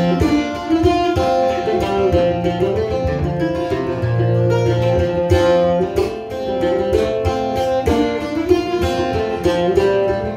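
Solo acoustic string instrument picked in a steady, busy pattern over a held drone note: the instrumental introduction to a song, heard through the PA.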